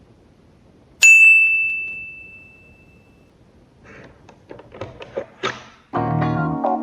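A single sharp metallic ding about a second in, ringing on one clear high tone that fades over about two seconds. It is followed by a quick run of small clicks and taps, and music begins near the end.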